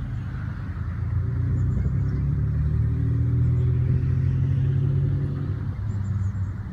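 Lawn mower engine running close by, swelling louder for a few seconds and then easing back, its pitch holding steady.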